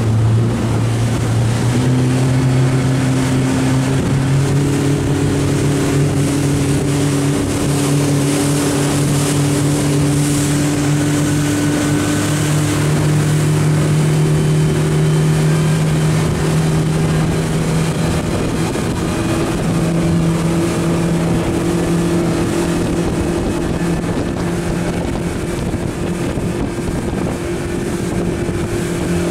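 Motorboat engine under way, its hum rising in pitch over the first few seconds as the boat speeds up, then running steadily. Wind and water noise rush over it.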